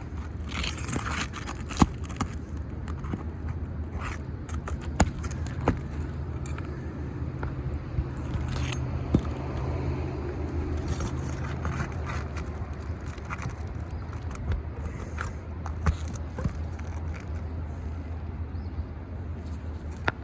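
Asphalt shingles being worked loose on a roof: scraping with many scattered sharp clicks and ticks, over a steady low hum. The shingles are worn and degranulated.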